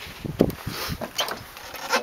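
Footsteps scuffing and knocking on a wooden plank walkway, with a few short, sharp knocks and rubbing.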